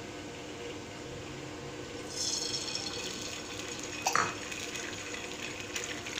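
An egg hitting hot oil on a flat iron griddle (tawa) and frying: sizzling starts about two seconds in and keeps hissing. A sharp clink about four seconds in.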